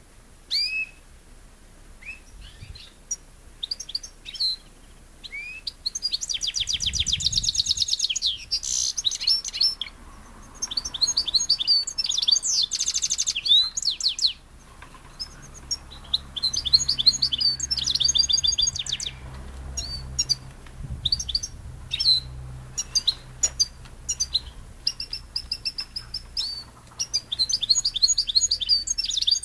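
Caged songbirds, a European goldfinch and a canary, singing: quick twittering chirps mixed with several long, fast trills, in bursts with short pauses between.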